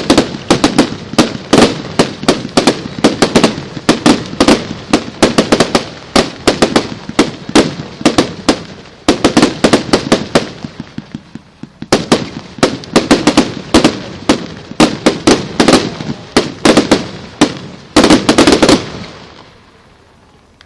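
Fireworks going off in a rapid, irregular string of sharp bangs, several a second, with a short lull about halfway through. The bangs stop shortly before the end.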